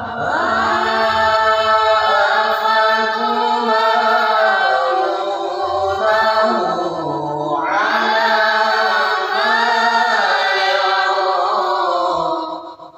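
A boy's voice reciting the Qur'an in melodic tilawah style, holding and ornamenting long phrases. He pauses for breath about halfway through, then sings a second long phrase that fades out near the end.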